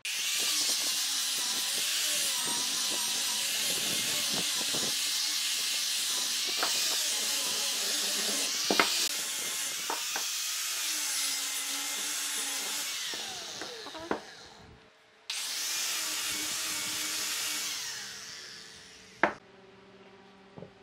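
Angle grinder with a sanding disc sanding a curved wooden block, a steady abrasive hiss over the motor's whine. It starts suddenly and winds down about fourteen seconds in. It starts again a moment later and runs down near the end, with a sharp knock just after.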